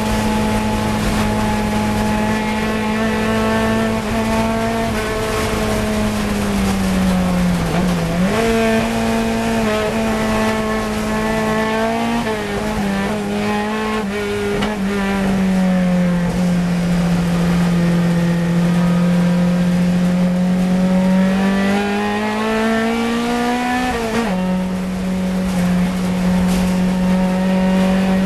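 Fiat 124 Coupe's twin-cam four-cylinder engine running hard at racing revs. The engine note dips and recovers twice in the first half with braking and gear changes, holds lower through a long corner, then climbs steadily and drops sharply at an upshift near the end.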